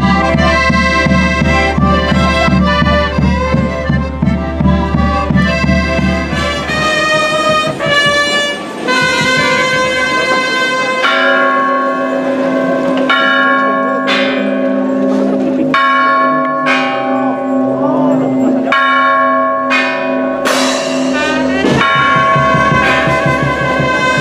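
Traditional band music with a steady drum beat, which gives way after about seven seconds to church bells ringing, struck about every second or two with long ringing decay.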